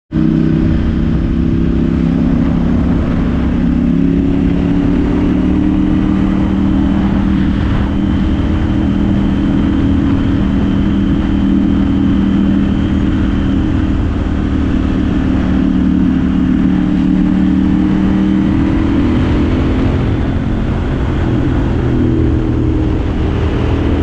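2021 KTM 890 Duke R's parallel-twin engine running at a steady speed through a Cobra slip-on exhaust with the baffle removed.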